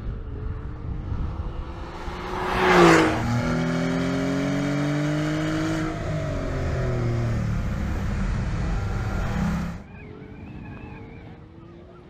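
Porsche 911 GTS flat-six engine driven hard past the microphone: the loudest moment, about three seconds in, is a pass-by with the pitch dropping, followed by a strong, steady engine note at high revs that slowly rises in pitch. Near the end it falls suddenly to a much fainter engine sound.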